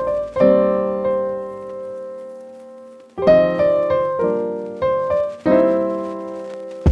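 Background piano music: chords struck and left to ring out, one long chord fading away before the playing picks up again about three seconds in.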